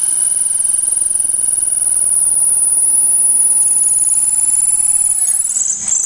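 Cordless 20 V drill running under load, a twist bit boring into a 3-inch-thick block of wood: a loud, steady, high-pitched motor whine that wavers and breaks up in the last second.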